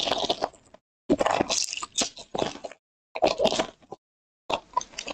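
Foil wrapper of a 2023 Bowman Platinum trading-card pack crinkling and tearing as it is ripped open by hand, in four short bursts of crackle.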